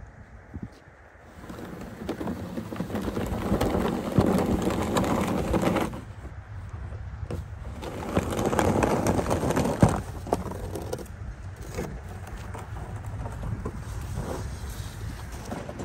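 Hand-truck snow pusher's blade scraping along concrete pavement as it shoves snow, in two long loud passes with a sharp knock about ten seconds in, then quieter scraping.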